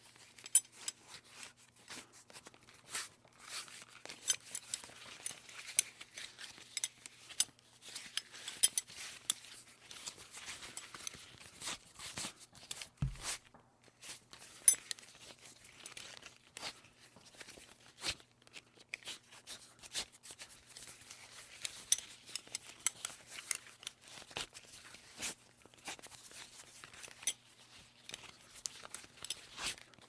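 A metal buckle being handled and worked over and over: irregular clicks, clinks and short rattles, some with a bright metallic ring, with soft rustling between them.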